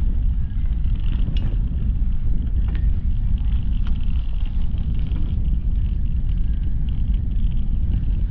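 Steady low rumble of wind buffeting the microphone while cycling, with the hiss of bicycle tyres rolling on a paved towpath and a few faint ticks.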